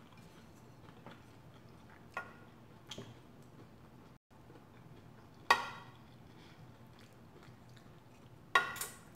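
Quiet chewing of food, with a wooden spoon knocking and scraping against a plate a few times; the sharpest knocks come about halfway through and near the end.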